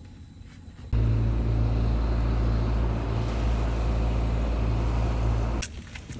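A car driving, with a steady low rumble of engine and road noise. It starts abruptly about a second in and cuts off abruptly near the end.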